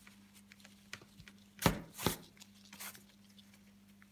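Hands handling embroidery canvas in a hoop while working satin ribbon: soft rustles and light clicks, with two louder brief scrapes about a second and a half and two seconds in, over a faint steady hum.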